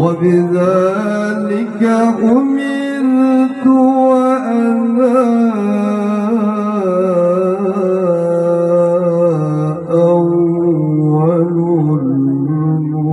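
Male qari reciting verses of the Qur'an in the melodic, chanted tilawah style into a microphone. He holds long, ornamented notes, with a brief pause about ten seconds in.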